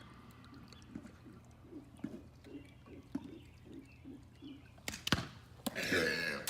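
Faint soft rhythmic sounds, then about five seconds in a couple of sharp knocks followed by the rush and splash of a person plunging into a swimming pool.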